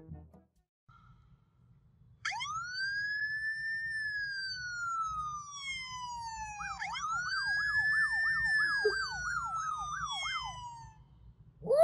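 Electronic police-siren sound, most likely played from a phone: a wail that rises and slowly falls starting about two seconds in, then a second wail that breaks into a fast up-and-down yelp, about two to three swings a second, stopping shortly before the end.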